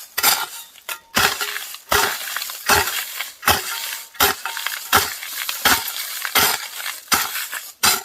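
Hand hoe chopping into soil and weeds in a steady rhythm, about one stroke every three-quarters of a second, each sharp strike followed by a crunching scrape of earth.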